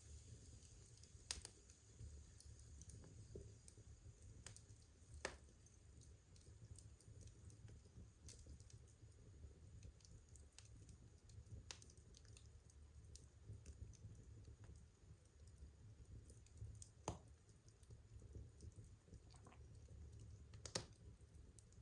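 Wood fire crackling softly: scattered small pops and snaps from burning logs, with four sharper cracks spread through, over a faint steady low hum.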